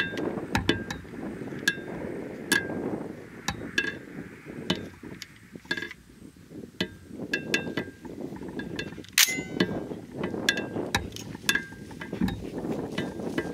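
Light metallic clicks and clinks, irregular and a fraction of a second apart, from a Hatfield SAS semi-automatic shotgun being handled around its forend and magazine tube.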